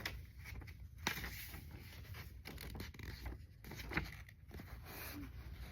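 A paper booklet being handled and its pages turned: irregular rustling and scraping, with a couple of sharp taps.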